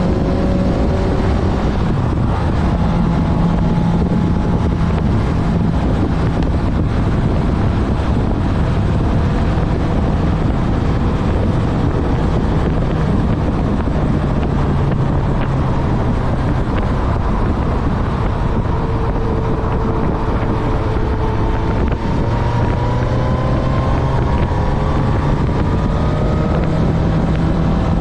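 Honda CB1000R's inline-four engine running at a steady cruise on the move, rising slowly in pitch near the end as it picks up revs, with wind rushing over the microphone.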